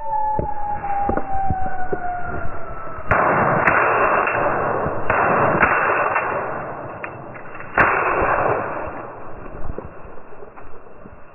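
Over-and-under shotgun fired at a flushed woodcock: a loud report about three seconds in and a sharper, louder one near eight seconds, with rustling and brush noise between them. A long, falling whistle-like tone is heard in the first few seconds.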